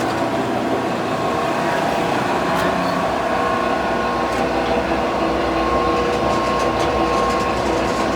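Butcher Boy 1,000-pound mixer grinder running: its electric motors and gear drive give a steady mechanical hum with several fixed tones, and a few faint ticks.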